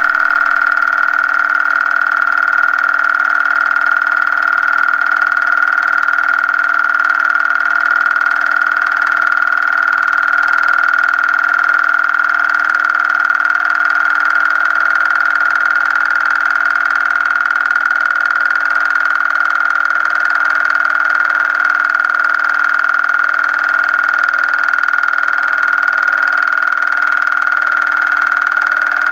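A loud, steady high-pitched tone with a weaker lower tone under it and constant hiss, unchanging throughout.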